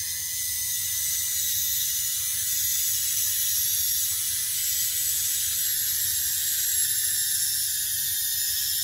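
Small electric gearmotor of a 3D-printed rover's steering system whining steadily under load as it swivels the front wheel across carpet.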